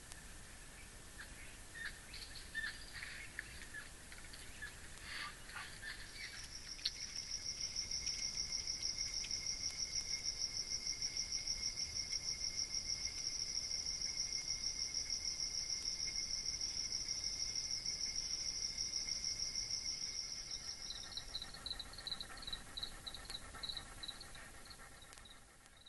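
Birds calling with short chirps for the first few seconds, then an insect trilling steadily with a fast, even pulse for about fifteen seconds, giving way near the end to a slower string of separate chirps.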